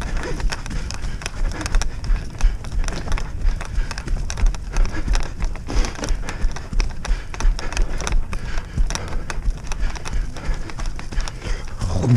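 Continuous jolting thuds and rustling from fast travel over a rough, rutted grass track behind a two-dog team, with a low rumble of wind on the head-mounted microphone.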